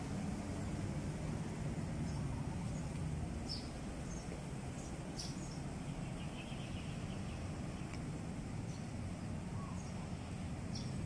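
Outdoor ambience: a steady low rumble with a few short, high bird chirps scattered through it.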